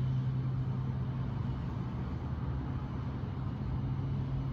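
Steady low mechanical hum with an even background hiss.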